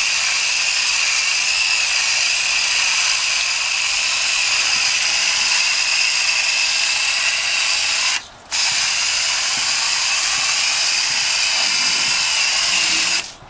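A sprayer applying foaming coil cleaner to an air-conditioner condenser coil: a steady spray hiss with a thin whine through it. It stops for a moment about eight seconds in, then starts again.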